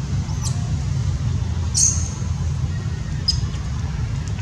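Three short high squeaks, the loudest about two seconds in, over a steady low rumble.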